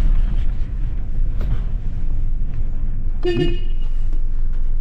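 Steady low rumble of a car heard from inside the cabin, with a short horn toot about three seconds in, a goodbye beep as the car leaves.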